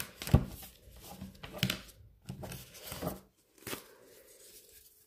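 Tarot cards being handled and shuffled: soft, irregular rustling and small card clicks, with a sharper click just under half a second in.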